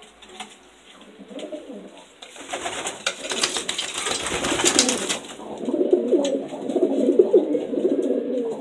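Homing pigeons cooing, low and repeated, from a little past the middle. Before that, a few seconds of rustling, scraping noise close to the microphone.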